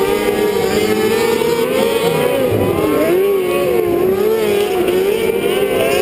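Several winged outlaw kart engines running at speed together, their pitch rising and falling as the cars lap and pass close by.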